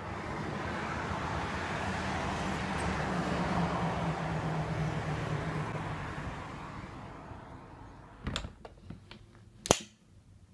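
Road traffic through an open window: a passing vehicle's tyre and engine noise swells and fades over several seconds. Near the end the uPVC window is pulled shut, with a knock and then a sharp latching click, the loudest sound.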